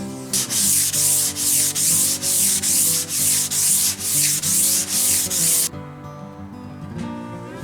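Hand sanding on wood: rapid back-and-forth strokes of sandpaper, about three a second, that stop abruptly near the end.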